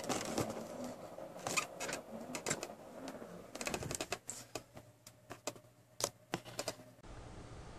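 Handling noise from a handheld camera being carried: irregular light clicks, knocks and rubbing. About seven seconds in it gives way to a faint steady hum.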